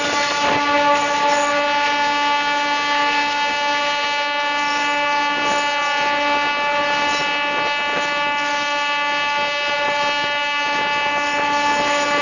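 WDM-7 diesel-electric locomotive hauling a passenger train, heard from a coach close behind it: a loud, steady pitched drone held throughout, with a few faint knocks from the running gear.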